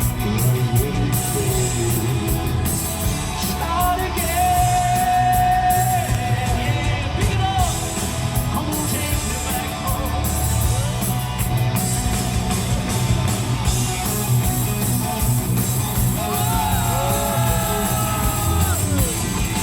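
Live hard rock band playing at full volume, with drums, bass and electric guitar, and sung vocals: a long held note about four seconds in and more sung lines near the end.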